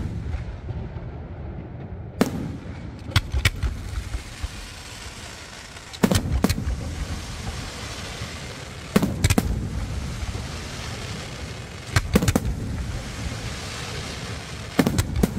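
Aerial firework shells bursting in sharp bangs, mostly in close pairs about a third of a second apart, a new pair about every three seconds, over a steady noisy background.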